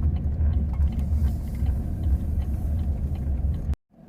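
Car driving slowly, heard from inside the cabin: a steady low engine and road rumble. It cuts off abruptly near the end.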